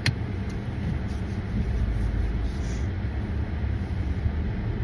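Steady low rumble of a running car heard from inside the cabin, with one sharp click at the very start.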